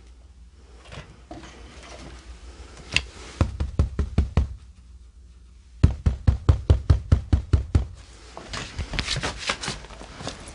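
Rapid knocking in runs: a short run of about six quick knocks, then a longer run of about a dozen at roughly six a second, followed by a rattle of lighter clicks near the end.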